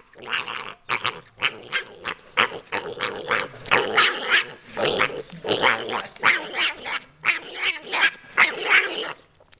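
A pet pig squealing in a quick run of short calls, about two or three a second.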